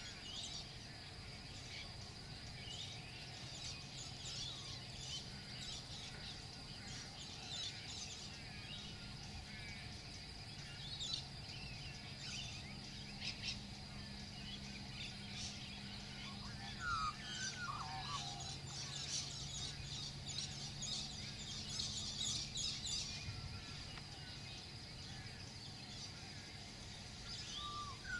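Wild birds chirping and calling from the trees, many short chirps with a lower falling call in between, over a steady high-pitched drone; the chirping is busiest about three-quarters of the way through.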